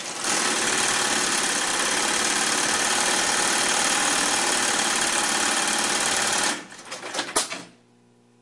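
Highlead GC20698-1 industrial long-arm walking-foot lockstitch sewing machine stitching steadily at speed for about six and a half seconds. It then slows to a few single stitches with a sharp click, leaving only a faint steady hum.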